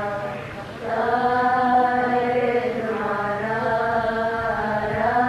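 A woman's solo voice chanting an Arabic praise hymn (madih) in the Coptic style, holding long, slowly wavering melismatic notes. The voice dips briefly just under a second in, then takes up the next held note.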